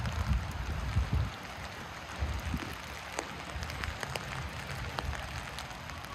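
Steady rain hiss with scattered drops tapping close to the microphone, over a low rumble that dies away about a second in.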